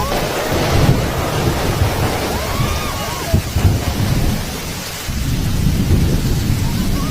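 Storm noise: heavy rain with deep, continuous rumbling from thunder and wind.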